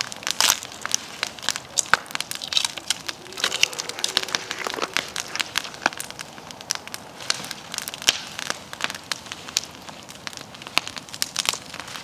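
Wood fire crackling, with dense, irregular sharp snaps and pops throughout.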